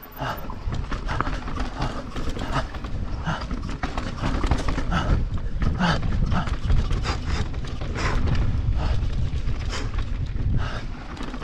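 Mountain bike descending a dry dirt singletrack: wind rumbling over the camera microphone and the tyres rolling on dirt, with a short noisy puff about every two-thirds of a second.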